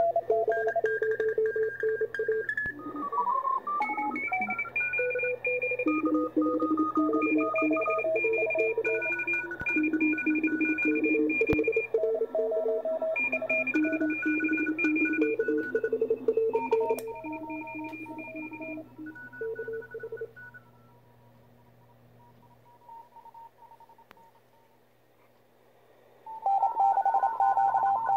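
Morse code (CW) signals from many amateur radio stations at once on the 20 m band, heard from the Youkits HB-1B QRP transceiver's speaker: overlapping on-off keyed tones at several different pitches, a pileup of stations calling. About three seconds in the tones slide in pitch as the receiver is tuned down slightly; past the middle the signals fade to faint, and strong keyed tones return near the end.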